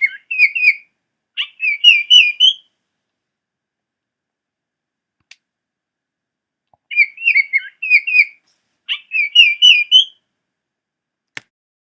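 Baltimore oriole song: short phrases of clear, rich whistled notes, heard in two bouts about five seconds apart.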